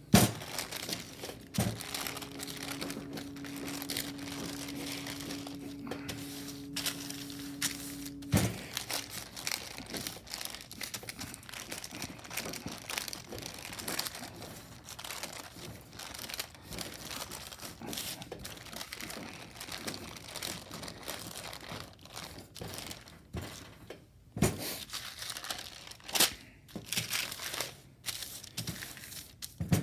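Parchment paper crinkling and rustling as a stainless steel rolling pin is rolled back and forth over dough pressed between two sheets, with a few sharp knocks as the pin meets the steel counter. A steady low hum runs through the first several seconds and stops about eight seconds in.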